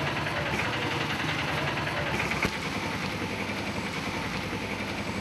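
A vehicle engine idling steadily with a low hum, and a single click about two and a half seconds in.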